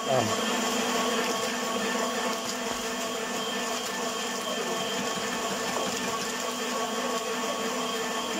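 A machine running steadily: a continuous hum with several steady tones over an even noise. It starts abruptly and holds level without change.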